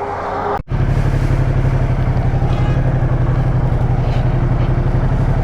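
Motorcycle engine running steadily under way, a fast, even pulsing drone; it cuts in abruptly just under a second in after a short break.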